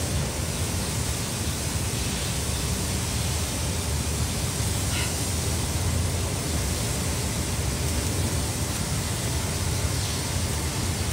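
Steady, even rushing noise with a low rumble beneath it, unchanging throughout.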